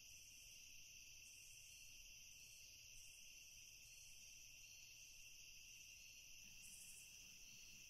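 Near silence: a faint, steady, high-pitched cricket chorus of night ambience.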